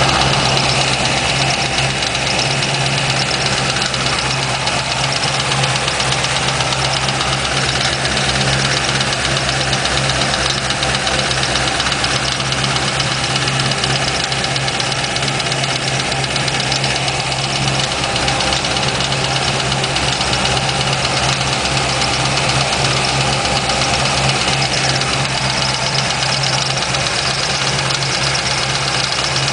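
2004 Corvette Z06's LS6 V8 idling steadily, with a ticking from the engine running through the idle.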